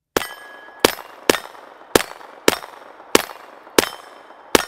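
Eight single shots from a Kriss Vector carbine at an even pace, about one every two-thirds of a second. Each shot is followed by the ring of struck steel targets.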